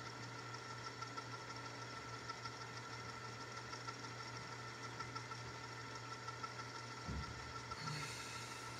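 VCR rewinding a VHS tape: a steady mechanical whir with fine, rapid ticking from the transport, and a short low thump about seven seconds in.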